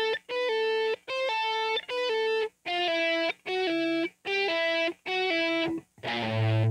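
Clean electric guitar playing about seven short two-note pull-off figures, each a picked note followed by a note sounded by the left-hand finger pulling off the string, with a brief silence between them as the exercise moves across the strings. Near the end a louder, distorted phrase with a low note comes in.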